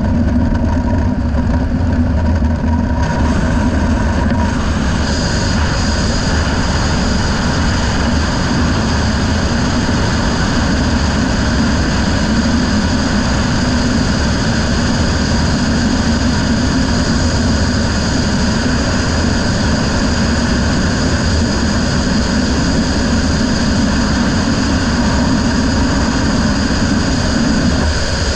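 Racing riverboat's engine running steadily at high speed, a loud continuous drone. A thin high whine joins it about five seconds in.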